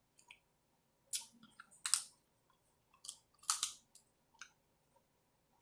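Kitchen scissors snipping through snow crab leg shells: several short, sharp crunching cuts a second or so apart.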